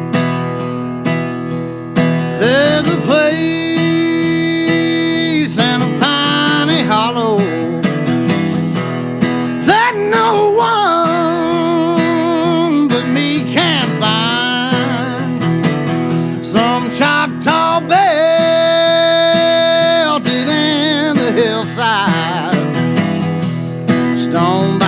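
Background music: a country-style song with strummed acoustic guitar and a sung melody.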